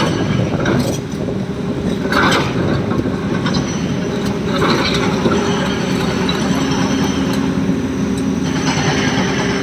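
Heavy diesel machinery running steadily, an excavator or truck working trucks at a stone quarry, with short bursts of noise about two and five seconds in.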